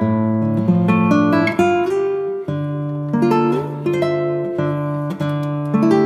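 Background music: an acoustic guitar plucking and strumming a melody over changing chords.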